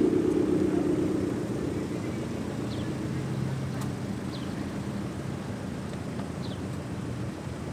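Cars driving slowly past at low speed: a loud engine fades over the first second or so, then a steady low engine hum as the next cars creep by.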